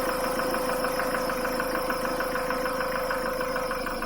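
Mitsubishi 4D56T 2.5-litre four-cylinder turbodiesel idling with a steady rhythmic knock, about six or seven a second, and a steady whine. The engine was damaged when a rag drawn into the intake manifold bent an intake valve and a connecting rod; the valve and rod are replaced, but the piston is not.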